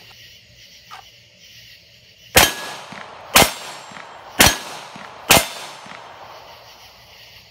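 Four gunshots about a second apart, each with a short echoing tail, fired in slow, steady succession.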